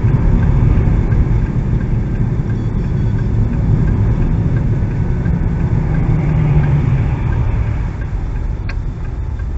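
Steady engine and road rumble heard from inside a moving car. The engine note swells for a couple of seconds midway.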